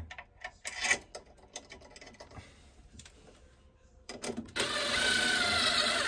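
Power drill running for about two seconds, starting about four seconds in, to drive in a screw that fastens a washing machine's new drive motor. Before it, only a few faint clicks of handling.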